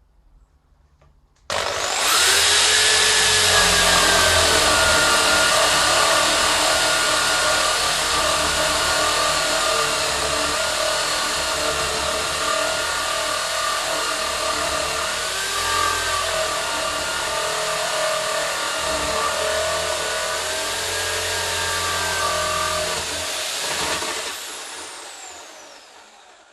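Corded electric power drill with a flat wood bit boring into thick timber. The motor starts about a second and a half in and runs loud, its whine dipping and recovering as the bit bites under load. It is switched off near the end and winds down.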